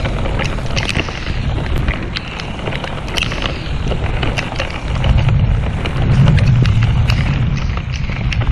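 Heavy rain pelting the camera and the boat as many sharp drop hits, over wind buffeting the microphone. A low rumble swells and grows louder about five seconds in.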